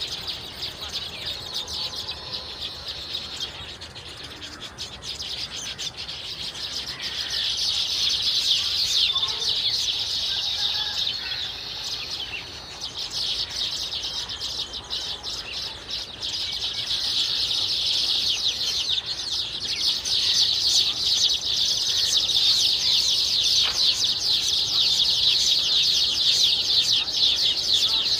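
A flock of baya weavers calling together in a dense, high-pitched chorus of rapid notes. It grows louder about seven seconds in and again a little past halfway.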